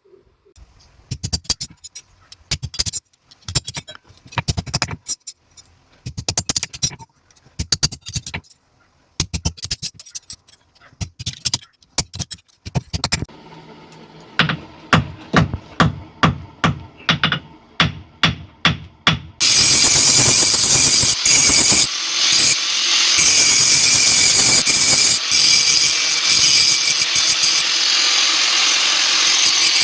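Hammer blows on steel, first in quick clusters, then as a steady run of about two strikes a second. About two-thirds of the way in, a power tool starts and runs steadily and loudly.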